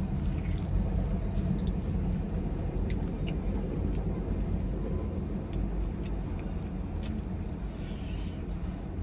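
Steady low vehicle rumble, with a few faint sharp mouth clicks and smacks from eating chicken wings.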